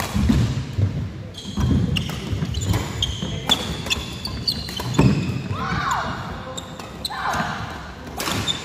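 Badminton doubles rally on an indoor wooden court: sharp racket strikes on the shuttlecock every second or so, with players' footfalls thudding on the floor. Shoes squeak twice on the court in the second half.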